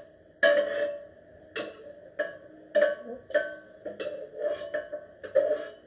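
Metal spatula knocking and scraping against a frying pan and a bowl, about ten sharp clinks with a short ring after each, unevenly spaced.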